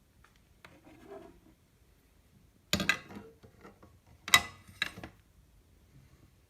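Three sharp knocks of hard objects being handled, the second the loudest, after a faint rustle about a second in.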